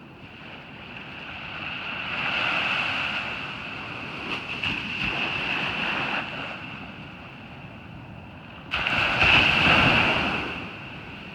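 Ocean surf on a beach: a wave swells and washes in a couple of seconds in, then a second wave breaks suddenly about three-quarters of the way through, the loudest moment, and fades.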